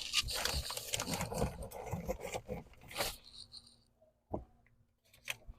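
Rustling, crunching and scraping as hickory wood chunks are handled in their bag for about three seconds, then two light knocks.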